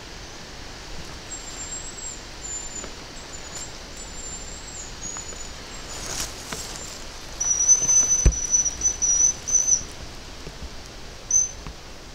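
Hazel grouse whistling: thin, very high whistled notes, a fainter wavering series first and then a louder drawn-out series broken into short pieces, with one short note near the end. A single sharp knock and some rustling of brush come just before the loud series.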